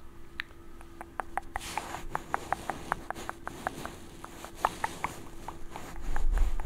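A quick series of small, sharp clicks, several a second, close to the microphone, over the steady hum of air conditioners. A low rumble comes near the end.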